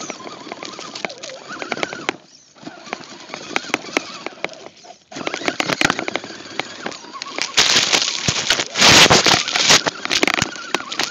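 RC crawler truck pushing through tall grass and weeds, heard from a camera mounted on it: dense crackling and brushing as stalks rake across the camera and body, over its electric drive. About eight seconds in the noise grows into a louder rush for a couple of seconds.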